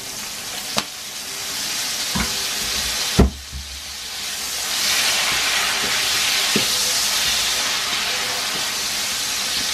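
Sliced onions sizzling in hot oil in a frying pan, with lemon juice just poured in, and being stirred with a spatula. A few sharp knocks of the utensil against the pan, the loudest about three seconds in, and the sizzle grows louder about halfway through.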